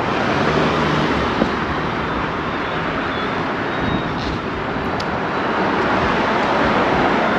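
City street traffic: a steady wash of passing cars and road noise.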